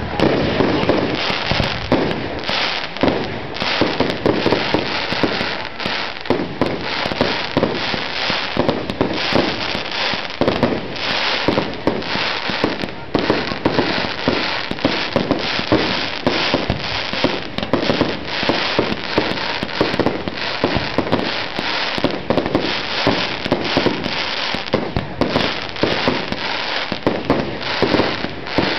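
Fireworks display with shells launching and bursting overhead: a rapid, unbroken run of sharp bangs.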